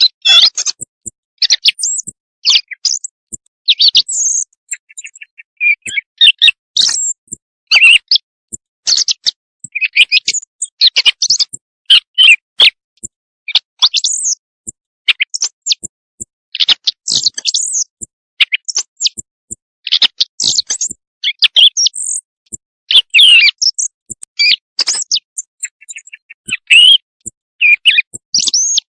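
Recorded quail calls played back as a hunting lure for calling quail at night: loud, high, short chirps and rapid trills repeated in quick runs with brief gaps between them.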